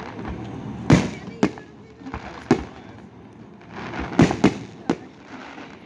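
Professional aerial firework shells bursting overhead: about six sharp booms, each with an echoing tail, the loudest about a second in and a cluster around four seconds in.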